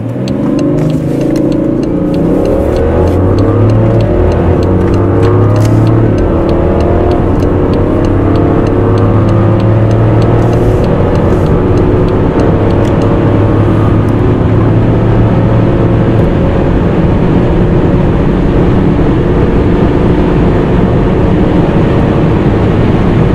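BMW 5 Series turbocharged three-litre inline-six engine accelerating hard at full throttle from a standstill up through the gears, its pitch rising and stepping as it shifts.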